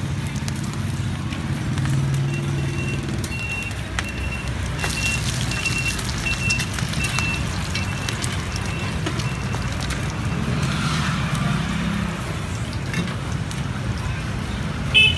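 Steady street-traffic rumble over oil sizzling on a large flat frying pan, with metal spatulas scraping and tapping as a fried rice-flour cake is turned and lifted out. A short high beep repeats about twice a second for several seconds, and there is a sharp clack just before the end.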